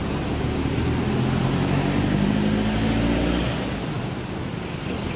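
Engine of a passing motor vehicle: an even hum that grows louder about half a second in and fades out about three and a half seconds in, over a steady outdoor hiss.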